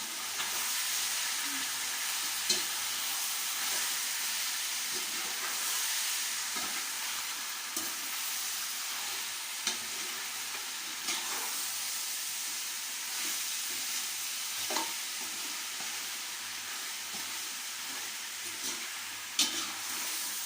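Chicken frying in oil with onion and garlic in a pot, sizzling steadily as it is stirred, with a few sharp clicks of the stirring utensil against the pot.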